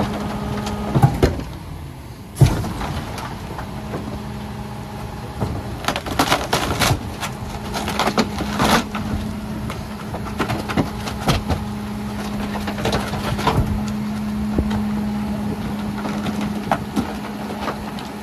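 Rear compactor of a Mercedes Econic refuse truck (Faun Variopress body) crushing an upholstered armchair into the body. The engine runs steadily under the hydraulic load while the chair's wooden frame cracks and snaps in sharp knocks, the loudest about two and a half seconds in, with a cluster between about six and nine seconds.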